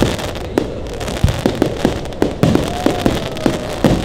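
Aerial fireworks going off in quick, irregular succession: sharp bangs, about two or three a second, over a continuous background of distant bursts.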